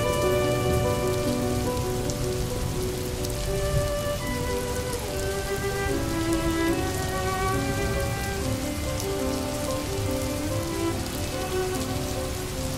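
Steady rain ambience with a soft instrumental melody of slow, held notes over it: a cozy background track of rain and music.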